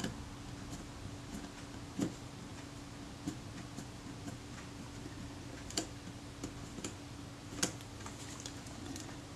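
Irregular small clicks and ticks of fingers and metal on a stuck meter setting button of a Kodak Retina Reflex IV camera as it is gripped and twisted, over a faint steady hum. The button is seized and will not turn loose.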